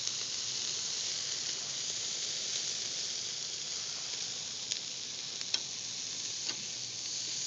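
Hamburger patties sizzling on a grill grate, a steady hiss of fat and steam. A few short, sharp clicks come about two-thirds of the way in.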